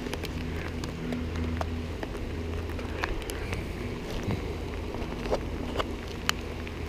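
Rain with scattered single drops ticking on the camera housing, over a steady low hum.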